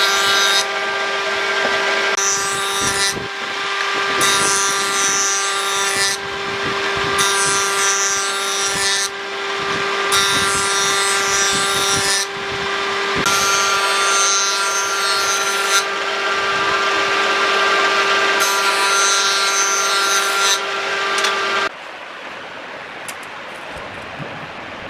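Jointer running with a steady hum while wood is fed across its cutterhead in repeated passes, each pass a cutting noise of about two seconds, coming roughly every three seconds. The machine sound cuts off abruptly near the end, leaving a quieter background.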